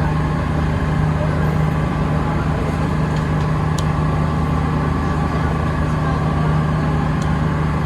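Tour boat's engine droning steadily, heard on board: a constant low hum that never changes in pitch or level, with a couple of faint clicks.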